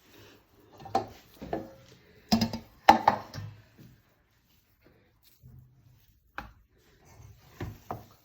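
Short knocks and taps of kitchen handling as mashed-potato filling is rolled into balls by hand and set down, several scattered strokes with the loudest pair about two to three seconds in.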